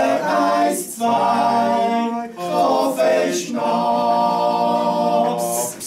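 A group of women singing a verse together, in phrases with short breaths between them, ending on a long held note that stops shortly before the end.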